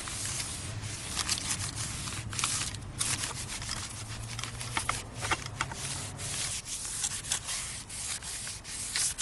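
A new brake rotor being wiped and scrubbed clean by hand, in repeated rubbing strokes with short breaks.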